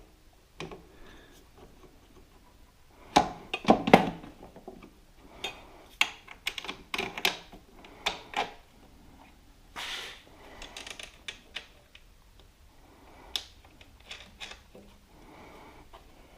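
Irregular clicks and knocks of hand tools and metal suspension parts being handled while a shock-mount bolt is worked into place, with a cluster of louder knocks about three to four seconds in.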